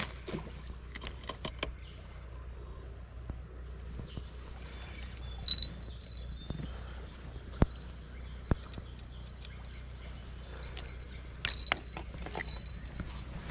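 A steady, high-pitched insect chorus, with scattered short clicks and knocks from a fishing rod and line being handled, a few of them near the end.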